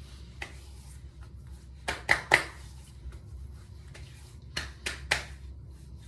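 Hands slapping and patting aftershave gel onto a freshly shaved face: three quick sharp slaps about two seconds in, then another three about a second before the end.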